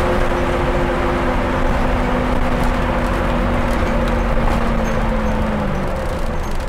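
Scania N230UD double-decker bus running on the road, heard from inside the saloon: steady engine and drivetrain noise with a whining tone that sinks slightly and fades out near the end.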